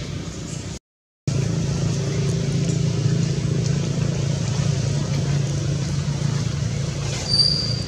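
Steady low engine hum from a running motor, broken by a brief drop to total silence about a second in. A short high chirp comes near the end.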